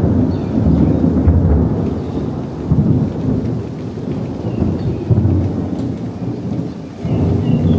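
Thunder rumbling and rolling in several swells during a tropical thunderstorm, over steady rain falling on the pool and wet paving.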